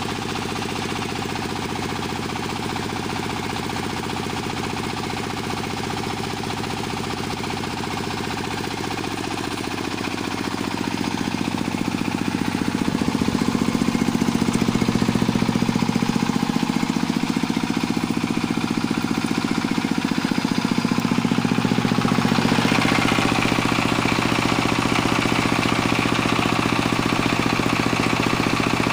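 Jiangdong ZH1135 single-cylinder diesel engine running steadily with a rapid knocking beat, growing louder from about ten seconds in.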